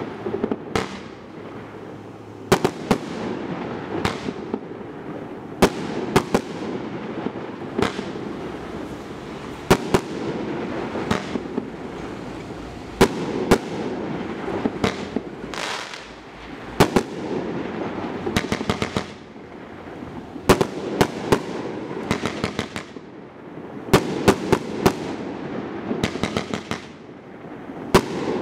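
Rambam 3.0 firework cake (Evolution Fireworks ORT-30) firing shot after shot: a sharp bang about every second as tubes fire and shells burst, with crackling between them and several quick runs of rapid cracks.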